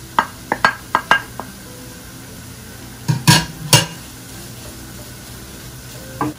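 Wooden spoon knocking and scraping as mushrooms are pushed off a plate into a frying pan and stirred into cubed luncheon meat and onion that sizzle quietly. A quick run of sharp taps comes in the first second and a half, then two louder scrapes a little past three seconds.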